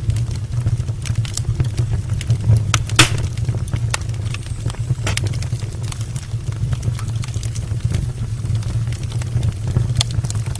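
Wood logs burning in an open brick fireplace: a steady low rumble of the fire with scattered sharp crackles and pops, the loudest pop about three seconds in.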